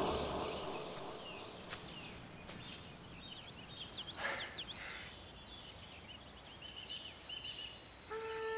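Birds chirping over a faint steady outdoor hiss, with a burst of quick chirps about four seconds in.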